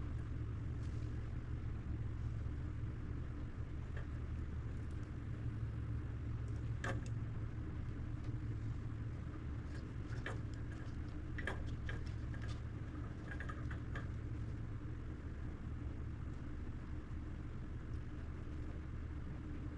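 A steady low hum with light clicks and taps about seven seconds in and several more between ten and fourteen seconds in.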